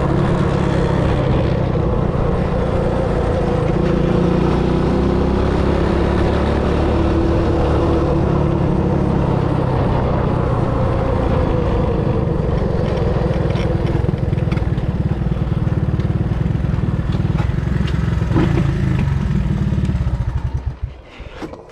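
Three-wheeler ATV engine running steadily under way, its note shifting a little with the throttle. Near the end the engine sound drops off sharply into a few uneven pulses as the trike slows.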